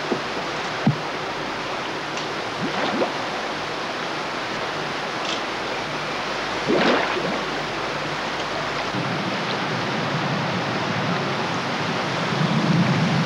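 Steady rushing of water, with a few short louder surges of noise and a low hum that grows in the last few seconds.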